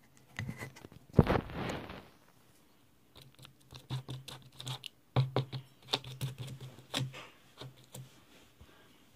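A heavy knock with a brief rustle about a second in, then a run of irregular sharp clicks and taps.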